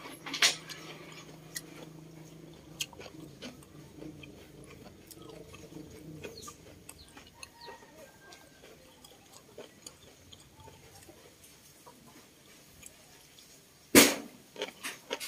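Close-up chewing of octopus and pechay: soft wet mouth clicks and smacks, with one loud, sharp bite about a second before the end.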